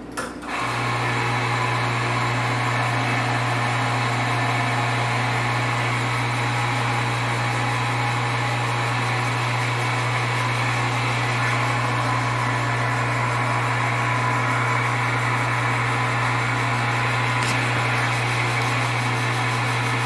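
Izzo Alex Duetto espresso machine's pump running steadily with a low hum as it pulls a shot of espresso, switched on about half a second in.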